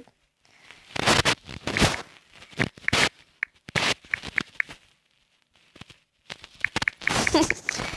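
Scratchy rubbing and tapping noises close to the microphone from a phone being handled and typed on, with a few short high blips, then a pause of about a second before the scratching starts again.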